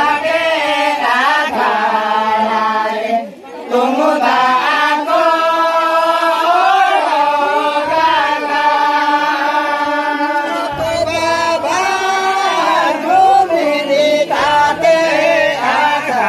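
A group of men singing a Santali Danta song together in unison, chant-like, with long held notes and a brief pause for breath about three seconds in.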